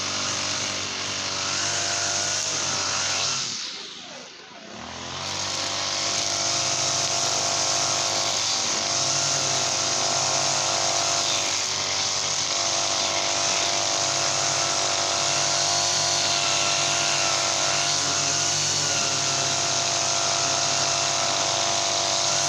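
Honda GX35 four-stroke brush cutter engine running at high revs. About three and a half seconds in, the throttle drops briefly and the engine revs back up, then it runs steadily.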